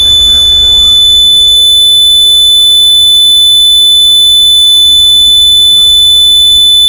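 A loud, steady, high-pitched electronic tone held unbroken.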